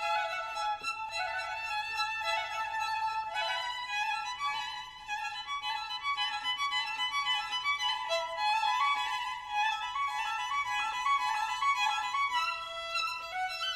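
Instrumental background music: a melody of held, pitched notes.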